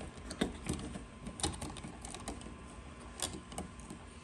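Scattered soft clicks and taps of electrical wires being handled and tucked into a plastic switch box.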